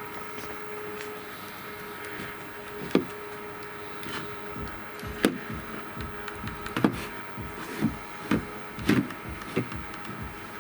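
A series of sharp plastic clicks and knocks, about seven of them and closer together in the second half, as cordless tool gear is handled, over a faint steady hum.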